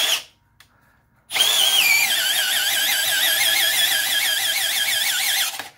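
Milwaukee M12 Fuel 2504 cordless drill in first gear driving a large auger bit into wood. The motor starts just over a second in and runs for about four seconds, then stops. Its whine wavers rapidly up and down in pitch as it labours under heavy load.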